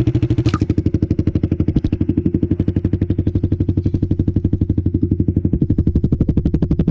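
Suzuki motorcycle engine idling through an aftermarket two-mode exhaust with its quiet-mode insert taken out, a steady, intense pulsing exhaust note. There is a sharp click about half a second in.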